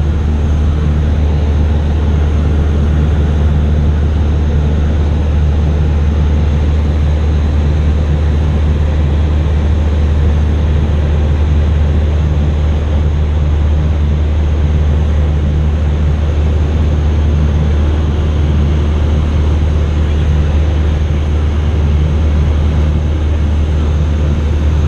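Cessna 172's piston engine and propeller droning steadily in cruise flight, heard from inside the cabin, with a steady hiss over the low drone.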